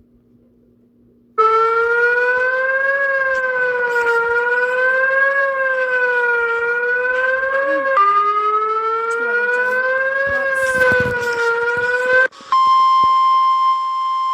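Emergency alert siren recording: a synthetic wailing tone whose pitch slowly rises and falls about every two and a half seconds, starting about a second and a half in. Near the end it cuts off and gives way to a steady, unwavering high beep tone, like a TV test tone.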